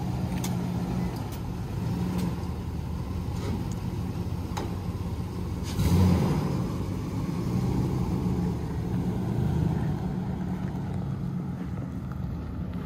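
2004 Nissan Titan pickup's 5.6-litre V8 running as the truck pulls away, with a brief rise in engine noise about six seconds in, growing fainter near the end as it drives off.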